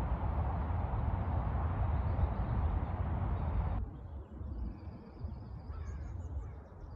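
Steady outdoor rumble and hiss that cuts off suddenly about four seconds in. Quieter open-air ambience follows, with birds chirping high and thin.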